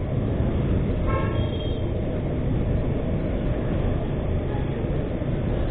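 Steady rumble of a motorcycle on the move: engine and wind noise on the handlebar-mounted camera. A short, flat horn toot sounds about a second in.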